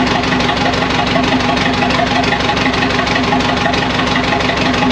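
International TD8E bulldozer's four-cylinder turbo diesel running at a steady idle with a dense, even diesel knock, the engine still cold.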